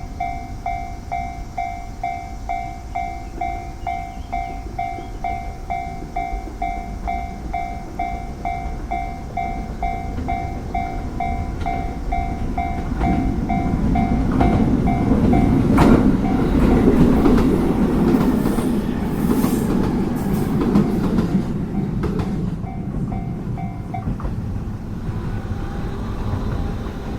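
A Japanese level crossing's electronic warning bell dings in an even, quick repeat while a JR Ome Line train passes over the crossing. The rumble and clatter of the wheels swell up about halfway through and fade again, and the bell stops near the end.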